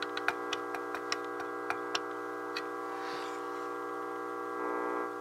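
Steady hum with many overtones from a Gonset Commander II AM transmitter on the air: power-supply hum that the owner puts down to its original, unreplaced filter capacitors. A run of irregular sharp clicks sounds over it in the first two and a half seconds.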